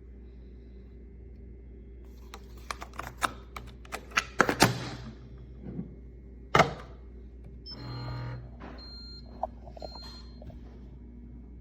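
Clicks and knocks of a single-serve K-Cup coffee maker being handled, the sharpest about four and a half and six and a half seconds in, followed by a short buzz and a few faint high tones, over a steady low hum.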